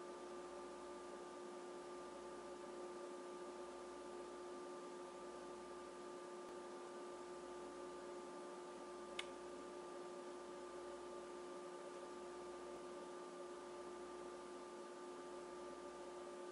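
A faint steady hum made of a few held tones over a soft hiss, with one sharp tick a little past halfway.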